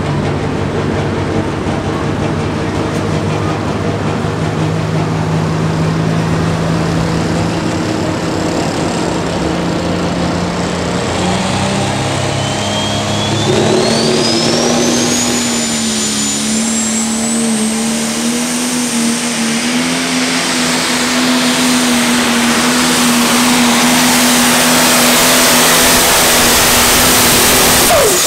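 John Deere pro stock pulling tractor's turbocharged diesel engine running steadily at the line, then revving up about halfway through. A turbo whistle climbs quickly and holds high. The engine runs at full power and grows louder toward the end as the tractor pulls the sled.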